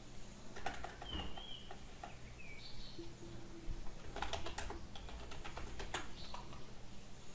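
Computer keyboard typing in short clusters of clicks, about a second in and again from about four to six seconds in, with a few short high chirps in between.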